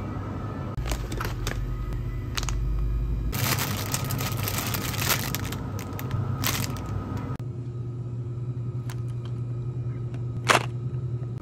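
Plastic product packaging handled and crinkled by hand, with scattered clicks and taps and a stretch of dense crinkling in the middle. One sharp tap comes near the end. A steady low hum runs underneath.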